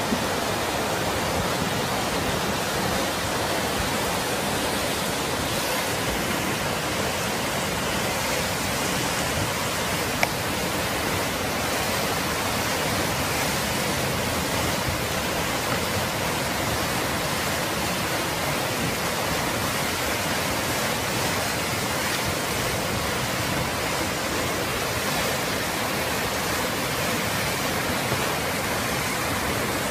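Muddy flash-flood torrent rushing over the ground: a steady, unbroken rush of water.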